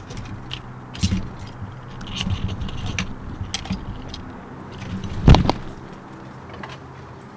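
A squirrel clambering on the camera: its claws scrape and tap on the camera body in quick irregular clicks. About five seconds in there is one heavy knock as the camera is jolted.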